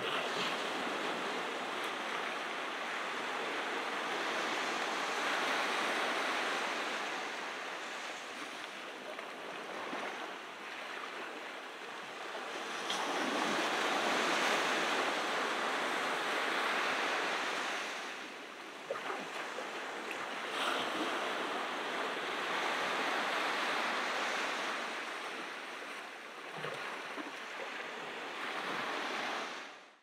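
Ocean surf breaking and washing up the beach, swelling and easing every several seconds. It fades out quickly near the end.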